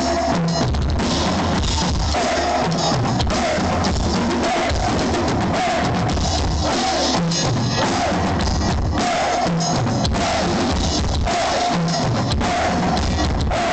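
Heavy-metal drum solo played live on a full drum kit, the bass drum and drums going without a break at a steady loud level.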